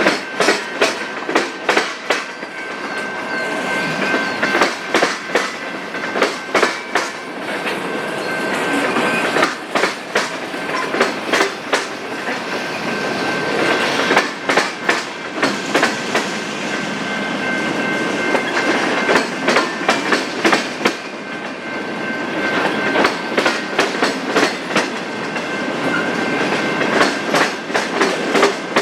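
Freight train cars rolling past, their wheels clicking over rail joints in quick clusters of beats, with a thin steady high whine.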